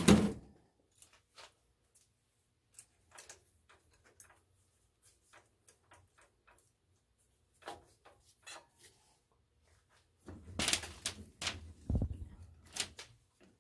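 Scattered small metal clicks and knocks of hand tools and tooling being handled at a milling machine, with a louder run of clatter near the end.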